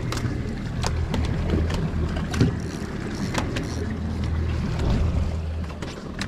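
Boat's twin outboard engines idling with a steady low hum, water and wind noise around the hull, and scattered sharp clicks and knocks, the loudest about two and a half seconds in.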